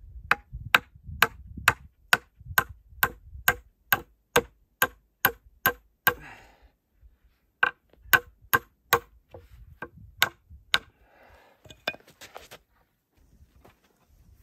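A hand tool striking repeatedly in a steady rhythm, about two to three sharp, briefly ringing blows a second. The blows pause for about a second and a half past the middle, resume for a few more, then give way to small scattered knocks near the end.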